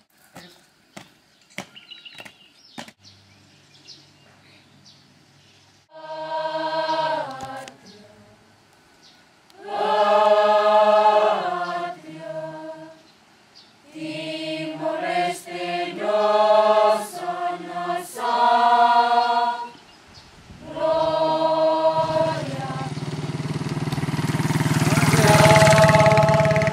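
A group of school students singing together in unison, in long held phrases with short breaks between them. Near the end a rushing noise swells up and grows louder under the singing.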